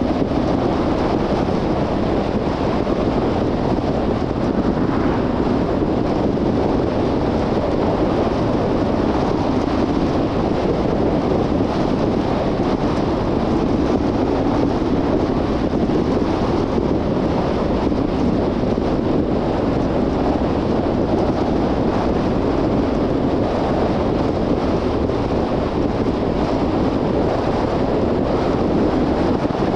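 Steady road and wind noise from a car on the move, an even hiss with no distinct engine note or other events.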